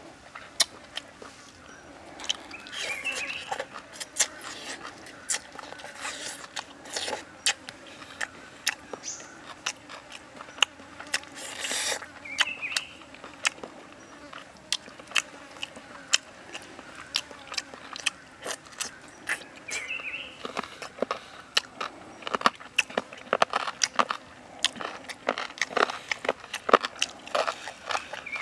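A person eating pork ribs with their fingers, close to the microphone: chewing, biting and wet mouth clicks, with many sharp crunchy clicks that come thickest in the last several seconds.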